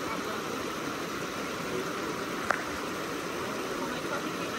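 Water of a small creek running over shallow rock cascades: a steady, even wash of water noise. One short sharp click about halfway through.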